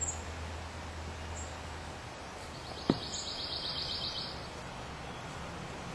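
Steady background hiss with a single sharp knock about three seconds in. Around the knock, a short run of rapid high chirps or ticks lasts under two seconds.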